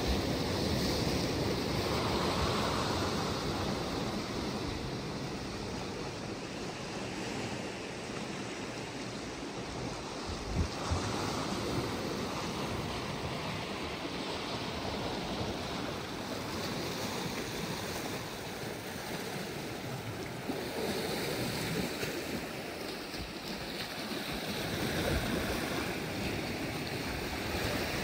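Sea waves washing on the shore with wind on the microphone: a steady rushing that swells and eases every several seconds. Two brief knocks sound about ten seconds in.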